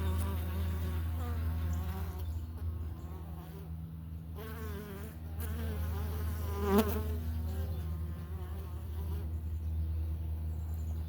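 Italian honey bees buzzing around the hive, individual bees flying past with a wavering, rising-and-falling buzz over a steady low hum. One bee passes loudest about two-thirds of the way through.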